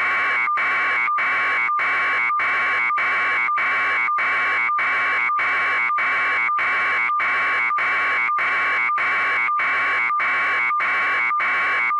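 A loud electronic buzzing that pulses evenly, just under two times a second, with a brief steady beep between pulses, unvarying throughout.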